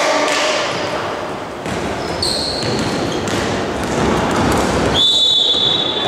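Basketball being bounced on a court in a large echoing sports hall, amid general game noise. There is a brief high squeak about two seconds in and a long, steady high-pitched tone from about five seconds in.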